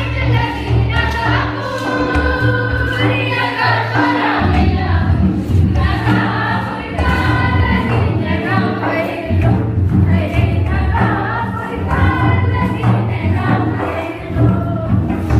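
A group of voices singing a Karam song together to a steady drum beat.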